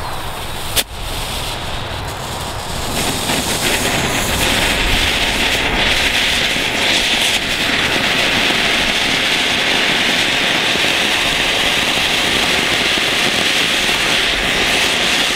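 Lesli Magma Vulkan Category 1 ground fountain burning: after a single sharp snap about a second in, it catches about three seconds in and goes into a loud, steady, high hiss as it sprays sparks, holding strong until near the end.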